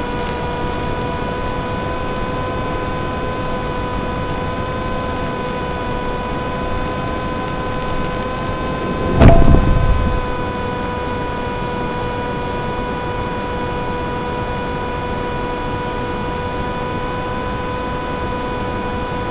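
Steady electrical hum of several fixed tones over hiss, picked up on an analog FPV video link's audio channel. About nine seconds in, one loud thump with a brief rumble as the model plane touches down in grass.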